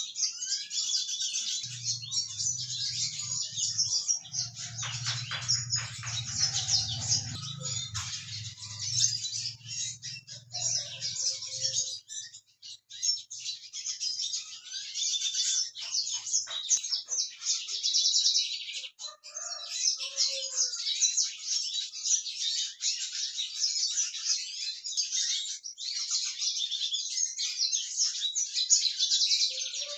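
Small finches, Mozambique finch (yellow-fronted canary) and red siskin, twittering and chirping almost without pause in high, rapid notes. A low hum sounds beneath them for the first third and then stops.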